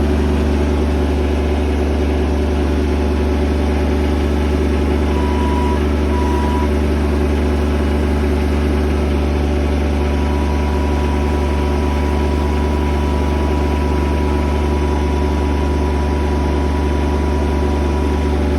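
Engine of a log-handling machine with a swinging, lifting arm, running steadily. A thin, steady high tone comes in briefly about five seconds in and again from about ten seconds in to near the end.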